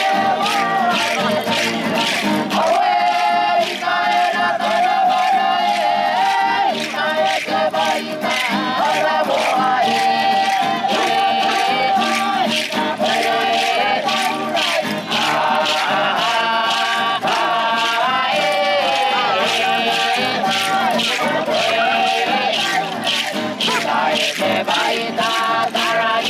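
Music: several voices singing together over a steady rhythmic accompaniment.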